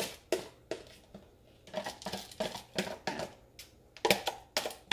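Wooden spoon scraping wet rinsed rice out of a plastic container into a glass baking dish: a series of short scrapes and taps, with quieter gaps between them.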